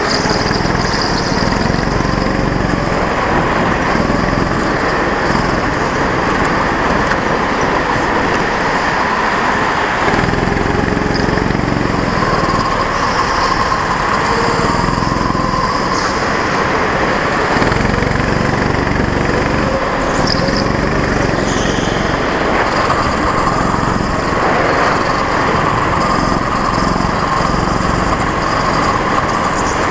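Go-kart's small engine running hard, heard from on board, its pitch rising and falling repeatedly as the throttle comes on and off around the laps.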